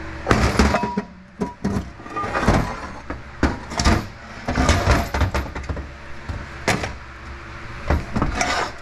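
Metal transmission parts knocking and clattering irregularly as they are handled and set down, some strikes briefly ringing, over a steady low hum.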